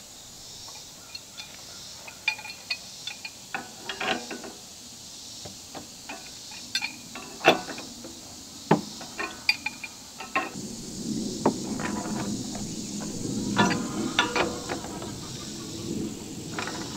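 Wrench clinking and knocking on black iron gas pipe and fittings as they are turned and tightened: a scatter of sharp metallic clicks, some briefly ringing. Insects buzz steadily behind it.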